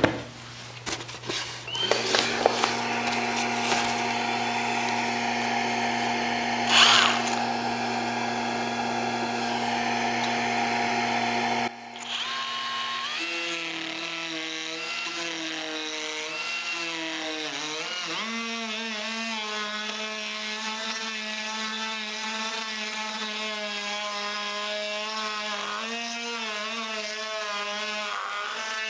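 A DeWalt 20V cordless die grinder with a small burr carves the bowl of a spoon into dry apple wood. After a few handling clicks it spins up about two seconds in and runs with a steady whine, with a short, louder grinding burst around seven seconds. The sound breaks off abruptly near twelve seconds and comes back with the whine wavering and dipping in pitch as the burr bites into the wood.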